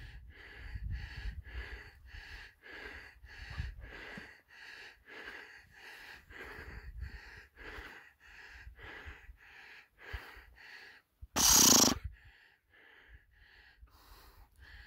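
Heavy, rhythmic panting breaths close to the microphone, about two a second. About eleven and a half seconds in, a short, loud blast of noise cuts across them.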